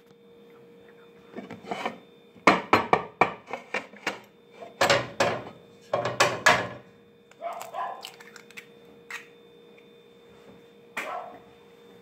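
A raw egg is knocked against a ceramic plate on a wooden counter and cracked open onto it: several short clusters of sharp knocks and clatter, loudest in the middle.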